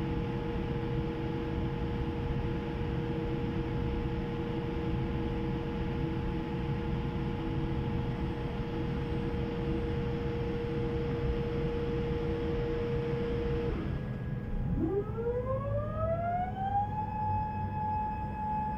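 Cabin noise inside a Boeing 787-8 taxiing: a steady hum and hiss with a few held tones. About fourteen seconds in, the hiss and tones drop away and a whine climbs in pitch over two or three seconds, then holds steady.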